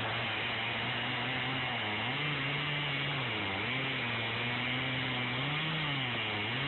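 Gas chainsaw cutting under load through a thick log. The engine's pitch sags and recovers a few times as the bar bites into the wood, over the rasp of the chain.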